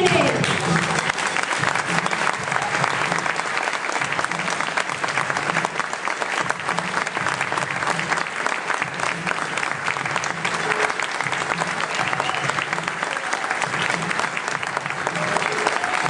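Audience applauding steadily: dense, continuous hand clapping.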